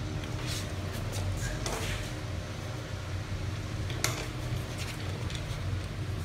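Handling noises over a steady low hum: a few brushing scuffs and a sharper click about four seconds in, as a gloved hand moves a rubber fuel line and wipes the mower engine with a rag.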